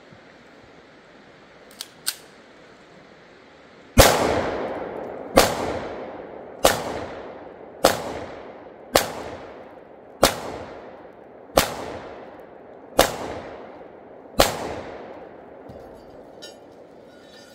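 Nine shots from a 10mm Sig Sauer P320 XTEN pistol, fired one at a time about a second and a half apart, each trailing off in an echo. Two faint clicks come a couple of seconds before the first shot.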